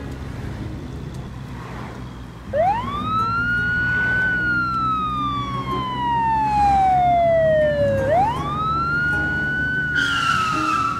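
Cartoon ambulance siren wailing, starting about two seconds in over a low steady hum. It rises quickly, then falls slowly over several seconds, then rises again for a second cycle.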